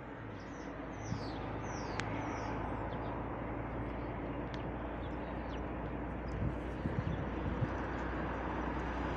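Outdoor roadside ambience: a steady low rumble of distant traffic, with birds chirping in several short calls during the first few seconds and a few faint ticks later on.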